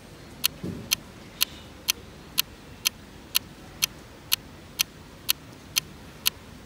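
Clock ticking steadily, about two sharp ticks a second.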